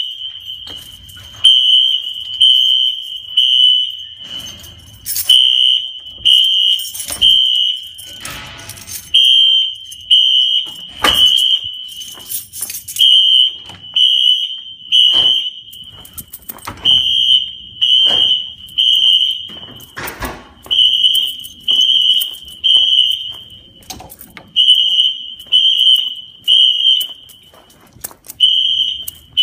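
Wheelock fire alarm horns sounding the temporal-3 evacuation signal: three short, high-pitched beeps, then a pause, repeating about every four seconds. The system is in alarm. Occasional knocks from footsteps and a door come between the beeps.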